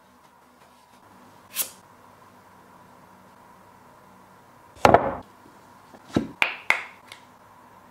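Handling noises from a pyramid-shaped coin display box: a short swish, then a thud followed by a few light knocks and clicks as the box is opened and the coin is lifted out.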